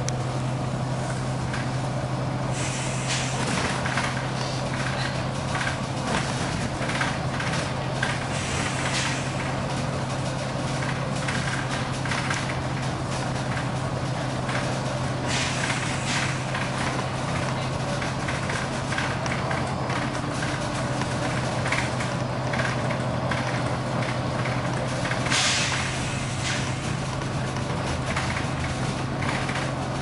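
Volvo B9TL double-decker bus on the move, heard from inside on the upper deck: a steady low diesel engine drone under constant body rattles and road noise. Short air hisses from the bus's air system come through, the loudest one late on.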